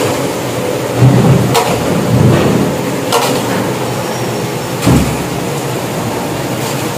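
A large metal spoon scraping and knocking against a big pan as carrot halwa is stirred while it roasts in ghee, keeping it from sticking to the bottom. The knocks come irregularly, the strongest about a second in and about five seconds in, over a steady background noise.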